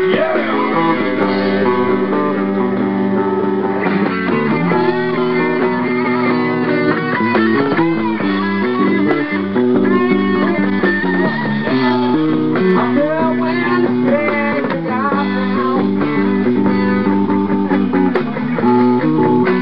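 A live rock band playing a guitar-led passage without vocals, with electric guitar lines moving over bass.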